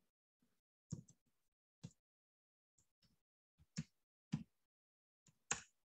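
Computer keyboard keystrokes: about ten separate key clicks at an irregular, unhurried pace, some in quick pairs, with dead silence between them.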